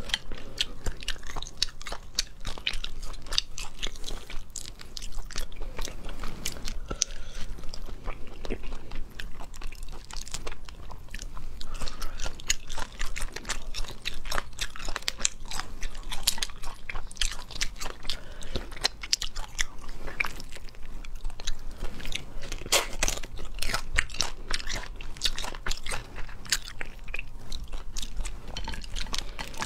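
Close-miked eating of crayfish: shells crackling and cracking as they are pulled apart and peeled by hand, mixed with biting and chewing, in a dense run of irregular crunches and clicks.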